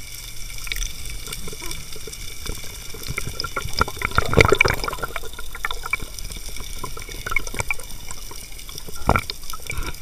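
Underwater water noise heard through a diving camera: scattered crackling clicks over a steady hiss, with a louder rushing swell of water about four seconds in and a shorter one near the end.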